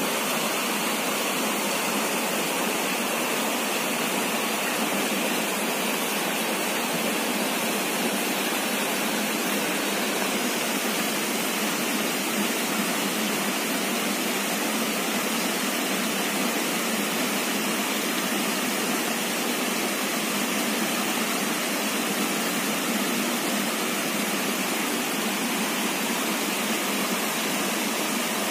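Rocky stream flowing over stones and small rapids: a steady, unbroken rush of water.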